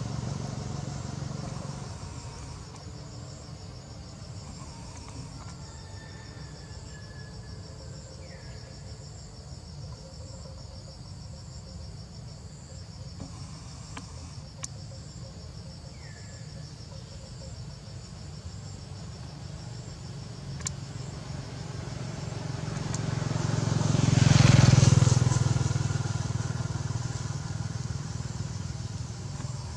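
Insects droning steadily at a high pitch, with a motorbike passing along the road: its engine grows to its loudest about 25 seconds in, then fades away.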